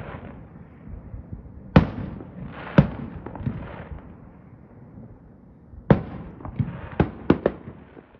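Fireworks display: aerial shells bursting with sharp bangs and rumbling echoes. Two loud bangs come about a second apart near two seconds in, then a quick run of bangs fills the last couple of seconds before the sound cuts off suddenly.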